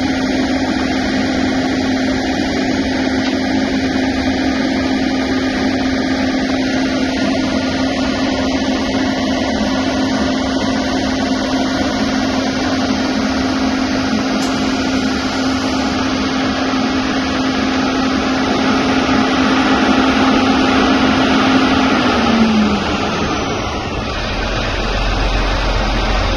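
Truck-mounted concrete boom pump's diesel engine running hard, a loud steady drone with a constant hum, while the pump is being primed with slurry from a ready-mix truck. About 23 seconds in, the hum drops in pitch and fades as the engine slows.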